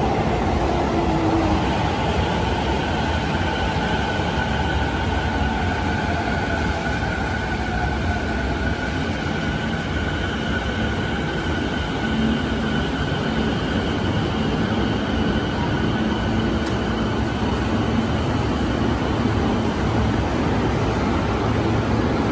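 Toei 10-300 series subway train pulling into an underground station and slowing to a stop, wheels rumbling on the rails. A steady high whine runs under the rumble, and a lower tone falls in pitch during the first several seconds as the train slows.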